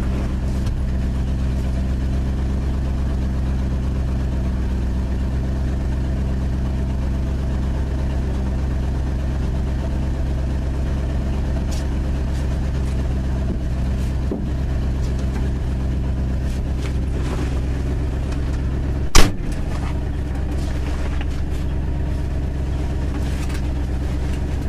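1974 Ford F-250 pickup's engine idling steadily while parked. One loud, sharp thump about three-quarters of the way through.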